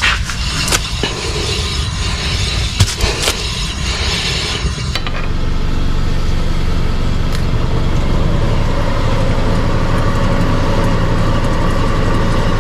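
Subaru Forester running on a lift with its rear wheel spinning, making a steady rolling, roaring hum: the sign of a worn right rear hub bearing. A few sharp knocks come in the first few seconds, and then the hum runs evenly.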